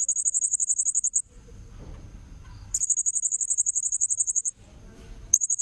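Blue-crowned hanging parrot (serindit) calls from a bird-lure recording: three bursts of rapid, very high-pitched chattering trills, the middle one longest, over a faint steady insect-like whine.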